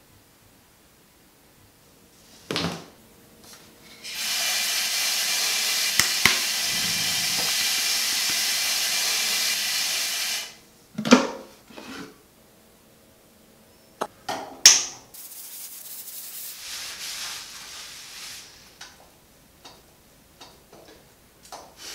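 Shower running: a steady hiss of spraying water for about six seconds, with a few short knocks and clicks before and after it. Later comes a softer, uneven hiss of shampoo being lathered into wet hair.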